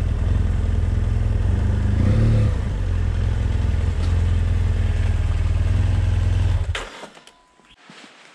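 BMW F800GS parallel-twin motorcycle engine running at low speed, with a short rise in revs about two seconds in. The engine sound cuts off abruptly near the end, leaving quiet with a few light clicks.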